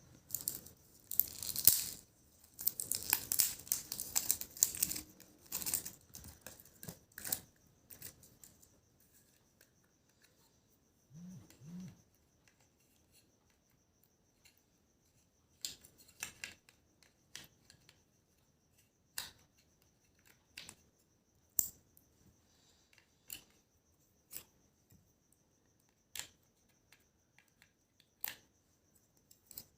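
Packaging being torn open and rustled for several seconds, then two brief low hums, then a run of short sharp clicks or snips, about one every second or two.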